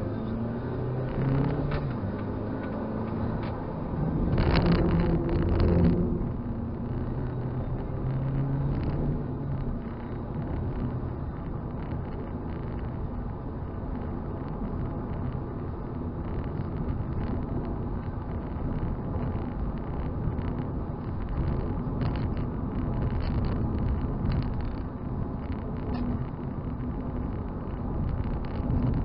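Toyota Celica engine and road noise heard inside the cabin while driving. The engine note rises in the first couple of seconds and is loudest around five seconds in, then settles into a steady cruise with a constant tyre and road rumble.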